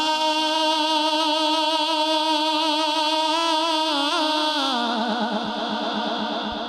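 A man's solo singing voice holding one long wordless note, a naat reciter's opening alaap before a verse. About four and a half seconds in the pitch slides down, then wavers and fades toward the end.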